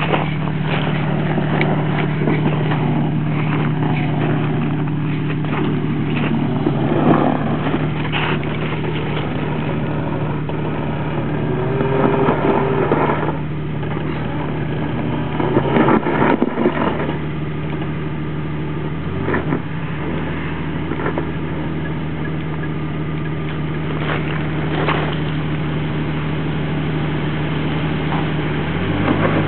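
Jeep Wrangler TJ engine running at a steady low idle as it crawls over a rutted rocky dirt trail, with scattered knocks and crunches from the tyres and body over rock. The engine note shifts near the end.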